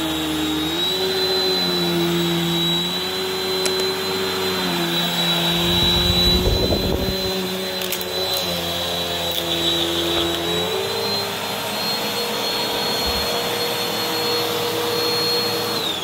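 BISSELL CleanView Swivel Pet Rewind upright vacuum (model 2258) running on carpet, its motor pitch shifting slightly up and down as it is pushed and tilted. There is a low rumbling thump about six seconds in. It is switched off at the very end and begins to wind down.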